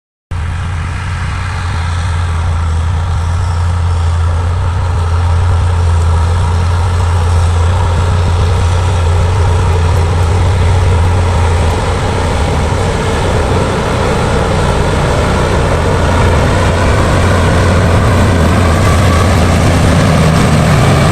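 Liugong bulldozer's diesel engine running steadily, with a strong deep hum in the first half that eases about halfway through.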